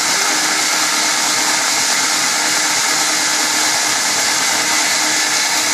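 Homemade belt grinder with a 3/4 hp motor running steadily, the abrasive belt spinning over its Teflon pulleys: an even, hissing whir that holds constant.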